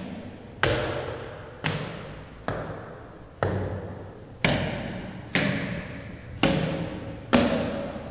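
Slow, heavy boot footsteps on a bare concrete floor in a large hall, about one step a second, each with a long echo; the last steps are the loudest.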